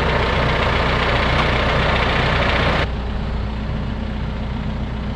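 Backhoe's diesel engine running steadily; about three seconds in it drops abruptly to a quieter, duller running sound.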